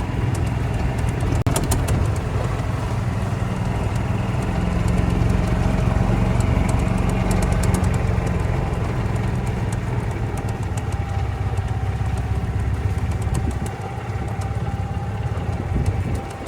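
Golf cart driving along: a steady low running sound with a faint whine above it.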